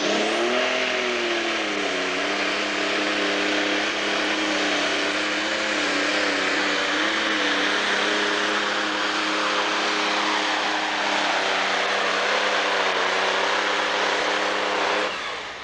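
John Deere super stock pulling tractor's turbocharged diesel engine running at full power under load as it drags the weight sled. Its pitch dips briefly about a second in, holds steady, then cuts off sharply near the end.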